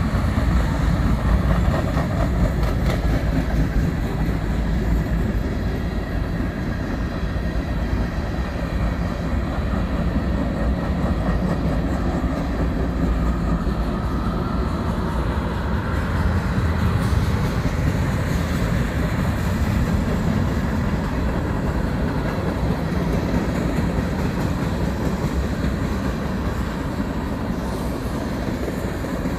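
Freight train cars, mostly tank cars and covered hoppers, rolling steadily past: a continuous low rumble of steel wheels on the rails.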